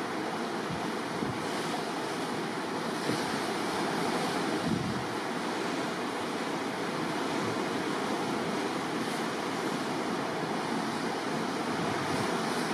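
Rough, whitecapped sea rushing and splashing in a steady wash, with wind buffeting the microphone.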